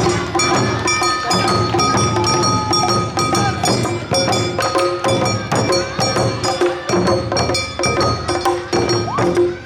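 Awa-odori festival music from a live street band: quick, evenly repeating percussion strikes under a held bamboo-flute melody, in the driving two-beat awa-odori rhythm.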